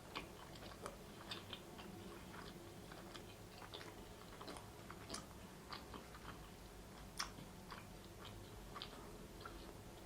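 Close-miked chewing of a bite of cheese-stuffed pizza crust: faint, irregular mouth clicks and smacks.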